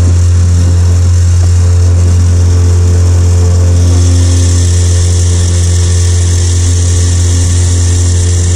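Small tiller-steered outboard motor running steadily at cruising speed, pushing an aluminum fishing boat under way: a loud, even drone that does not change pitch.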